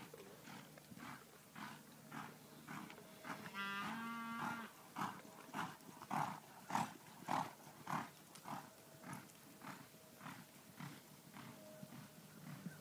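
Hoofbeats of a young cow horse loping on arena dirt, a steady rhythm of about one and a half thuds a second, loudest midway as the horse passes close. About four seconds in, one low, drawn-out animal call is heard, about a second long.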